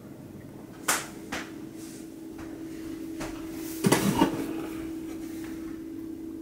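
Two sharp clicks about a second in, then a cluster of knocks as a bathroom wall cabinet's door is opened, over a steady low hum.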